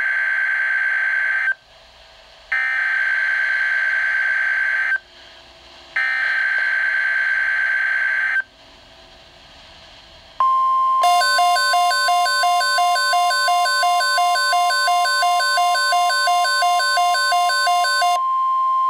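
NOAA Weather Radio SAME alert coding through a Midland weather alert radio's speaker: three harsh digital data bursts of about two and a half seconds each, a second apart, announcing a new severe thunderstorm watch. About ten seconds in, the steady 1050 Hz warning alarm tone begins. For about seven seconds it is joined by pulsing alert beeps, about three a second.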